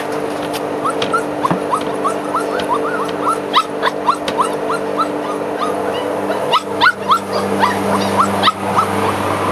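A puppy whining in a steady run of short, high, rising yelps, about three a second, over the steady hum of a lawn mower engine running outside.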